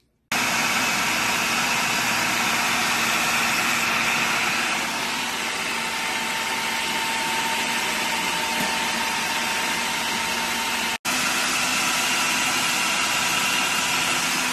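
Electric food processor switching on and running steadily, blending a chocolate mixture. The sound cuts out for an instant about three-quarters of the way through, then runs on.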